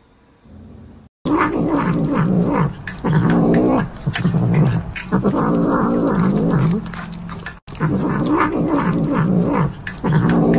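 A tabby cat growling and moaning while it eats meat off a skewer, starting about a second in: a long, loud run of rising and falling growls that break every second or so.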